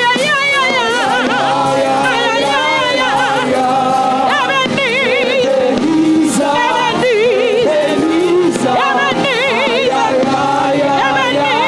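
Gospel worship music: a voice sings long, wavering lines with heavy vibrato over steady instrumental backing, with no clear words.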